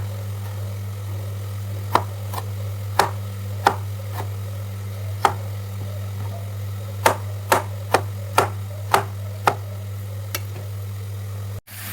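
Kitchen knife chopping tomatoes on a cutting board: about a dozen sharp, unevenly spaced strikes over a steady low hum.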